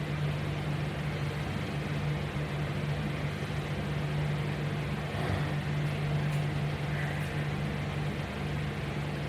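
A steady low hum with a constant hiss behind it, unchanging throughout.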